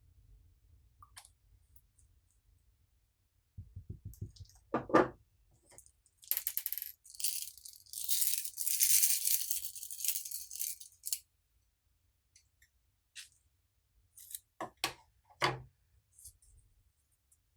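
Small hard objects rattling: a few knocks, then about five seconds of continuous high rattling, then a few sharp clicks near the end.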